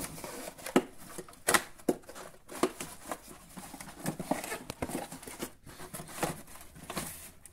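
A plastic toy spaceship in its cardboard insert is slid out of a cardboard box by hand. The cardboard scrapes and rustles, with irregular sharp knocks of plastic against card, the loudest about a second and a half in.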